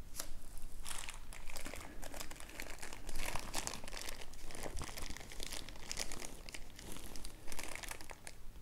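Small plastic parts bags crinkling and rustling in irregular bursts as they are handled.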